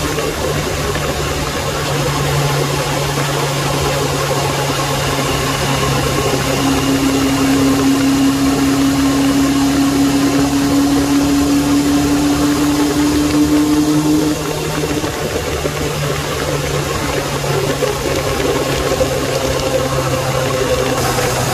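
Suzuki Bandit 600's inline-four engine running at a steady road speed, with wind rushing over the rider and the phone microphone. The engine note rises slightly, then drops back in level about fourteen seconds in.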